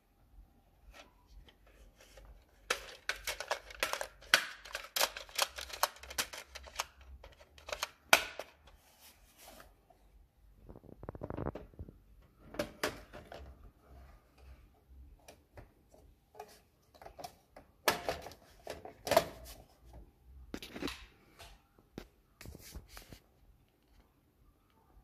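Plastic and metal clicking and rattling as CDs and a Sony XA-250 compact disc magazine are handled and the magazine is slid into a Sony 10-disc car CD changer. The clicks come in irregular flurries with quieter gaps, and there is a brief sliding sound just past ten seconds.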